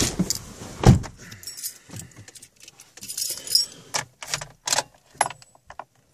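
Car keys jangling as they are handled and fitted into the ignition, with a heavy thump about a second in and a few sharp clicks in the second half as the key goes in and turns.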